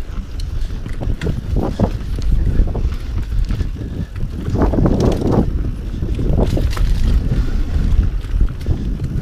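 Mountain bike descending a dirt singletrack: wind buffeting the camera microphone over tyre noise, with the bike rattling and knocking over bumps, thickest about halfway through.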